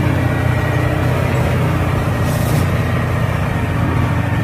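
Caterpillar 988B wheel loader's diesel engine running steadily under load while it carries a large stone block on its forks, with a brief hiss about two seconds in.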